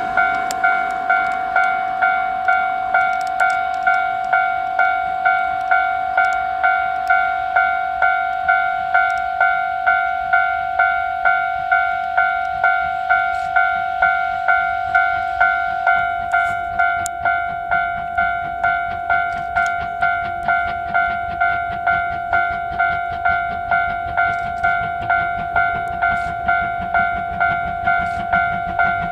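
Japanese level-crossing alarm ringing its electronic bell, one steady two-tone clang repeated about twice a second. The warning is sounding because a train is due at the crossing. A faint low rumble builds near the end.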